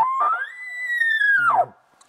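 Elk bugle: a call that slides up into a long, high whistle, then drops steeply near the end into a low, rough grunt.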